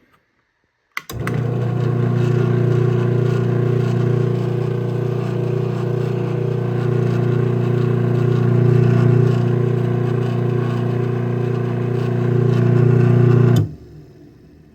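Craftsman 1/2 hp chain-drive garage door opener (model 139.53930) starting with a click about a second in, its motor and chain drive running with a steady hum for about twelve seconds while opening the door, then stopping abruptly near the end.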